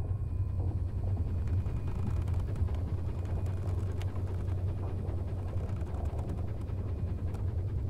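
A steady low rumble, with faint scattered mechanical clicks and creaks over it.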